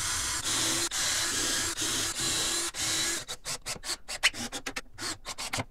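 Cordless drill running in a string of short bursts, each about half a second, as screws go in to mount a drawer pull. This is followed by a quick run of knocks and clatters as the pieces are handled and set down.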